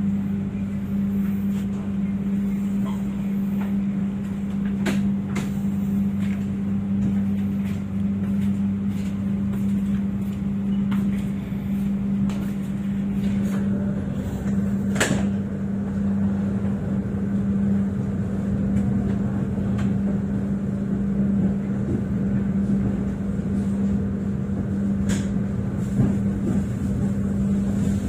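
Argo Bromo Anggrek passenger train running, heard from inside a carriage: a steady low hum over rumbling noise. A few sharp knocks sound through it, the clearest about fifteen seconds in.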